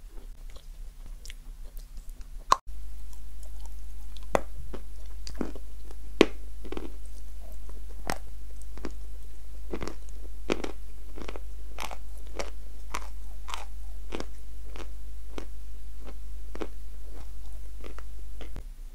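Close-miked chewing of a marshmallow dipped in cream: a steady run of mouth clicks and smacks, about two or three a second. A steady low hum comes in suddenly about three seconds in and stops just before the end.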